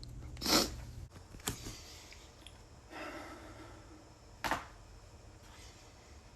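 Joints cracking during a chiropractic adjustment: a loud pop about half a second in, a lighter click a second later, and another sharp pop about four and a half seconds in, with a softer, longer sound around three seconds.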